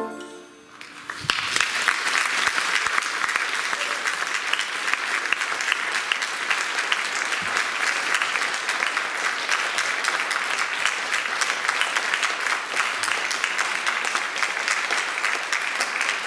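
The tail of a big band's final chord dies away, and about a second in an audience breaks into steady applause.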